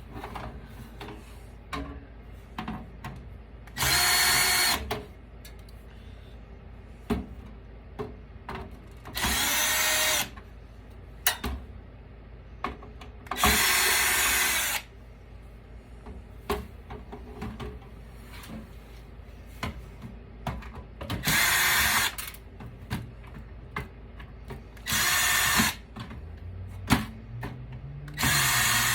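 Power drill-driver spinning in short runs of about a second, six times, backing screws out of a computer's motherboard and bracket, with small clicks and knocks of screws and metal parts being handled between runs.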